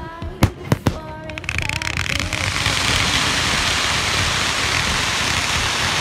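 Music with a melody and three sharp bangs in quick succession, then from about a second and a half in a loud, steady, dense crackling hiss like heavy rain from a firework spraying crackling sparks.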